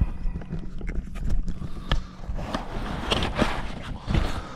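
Handling noise from a small action camera being gripped and repositioned: fingers rubbing over its body and microphone, with irregular knocks and bumps over a low rumble.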